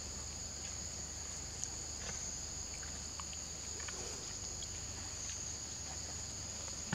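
Steady high-pitched insect chorus droning without a break, with a few faint scattered ticks over it.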